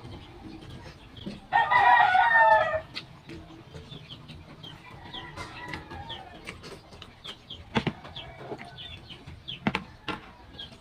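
A rooster crows once, about one and a half seconds in, a loud call of a little over a second that falls slightly in pitch. Faint short high chirps continue around it, and there are a couple of sharp clicks near the end.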